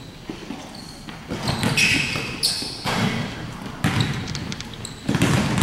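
Basketball bouncing on a hardwood gym floor during a shooting drill: several separate thuds about a second apart, with a few short high squeaks of sneakers on the court.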